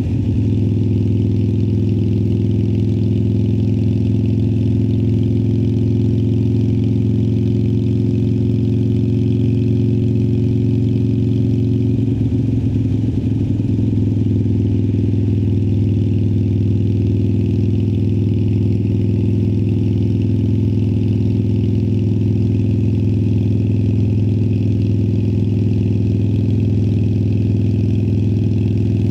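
Harley-Davidson Sportster Iron 1200's air-cooled V-twin running through Vance & Hines Twin Slash slip-on exhausts, holding one steady engine speed with no revving.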